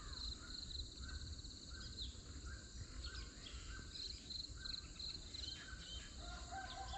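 Faint birdsong: repeated short high trills and chirps, with a few lower whistled notes near the end.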